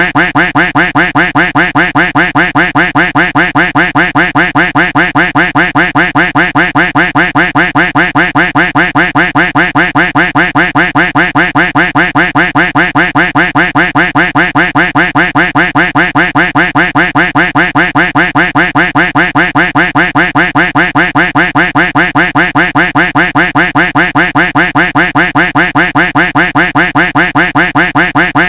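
Duck quack sound effect looped without a break: the same quack repeated over and over in a fast, even rhythm.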